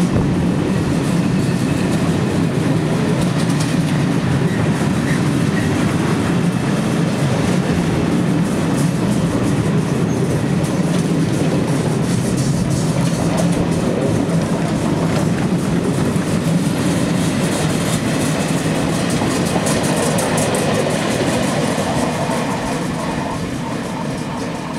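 Freight wagons of an intermodal train, Megacombi pocket wagons carrying semitrailers, pass close by at speed: a steady rumble of wheels on the rails with fast clicking over the rail joints. The sound fades over the last few seconds as the end of the train draws away.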